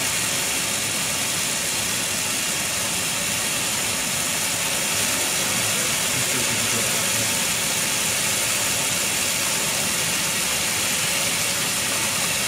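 Steady, even hiss of a lab vacuum line drawing on a Büchner funnel and filter flask during vacuum filtration.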